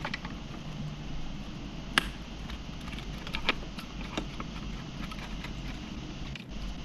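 Small metallic clicks of a screwdriver turning out an oven door hinge screw, scattered and irregular, with a sharper click about two seconds in and another about a second and a half later.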